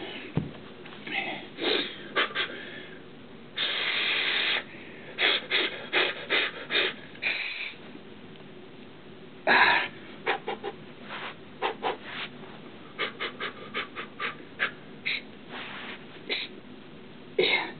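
A man breathing hard through the pain of a dumbbell being rolled along his shin: many short, sharp puffs and sniffs, with a longer exhale about four seconds in and another near ten seconds.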